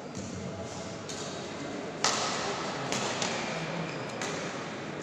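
Badminton rally: a racket strikes the shuttlecock with a sharp smack about two seconds in, followed by a few lighter knocks as play goes on.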